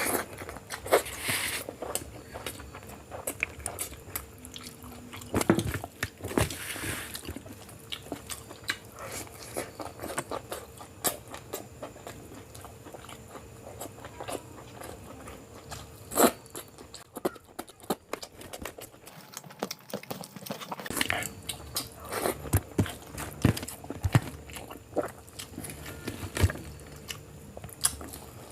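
Close-up eating sounds of a person eating biryani: chewing, lip smacks and wet mouth clicks coming irregularly, with no talking.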